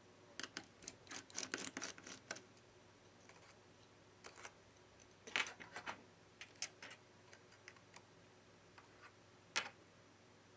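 Faint clicks and ticks of a precision screwdriver on the small screws of a smartphone's metal board shield. They come in a few short clusters, the busiest in the first couple of seconds.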